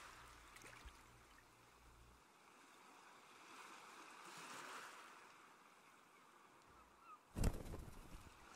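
Faint soft wash of ambience that swells a little midway, then, about seven seconds in, a sudden loud burst of water birds taking off, wings flapping.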